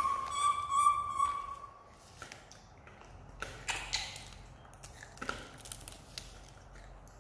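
A high, steady squeal lasting about a second at the start. Then scattered light taps and clicks as young macaques pick food off a plastic plate.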